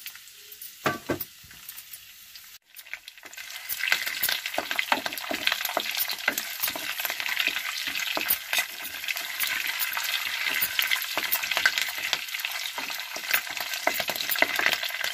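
Mustard seeds, cumin, split chana and urad dal and curry leaves sizzling and crackling in hot oil in a clay pot, stirred with a wooden spatula. The mustard seeds are spluttering. The sizzle is quieter at first, then grows loud about three and a half seconds in and crackles steadily with many quick pops.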